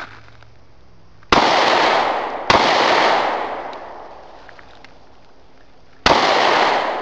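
Kahr CW40 .40 S&W pistol firing three shots: two about a second apart early on, then a third after a pause of about three and a half seconds near the end. Each sharp bang is followed by a long echo.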